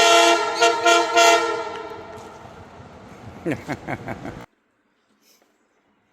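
Loud train air horn sounding a chord of several notes in a few quick blasts, then trailing off; the sound cuts out about four and a half seconds in.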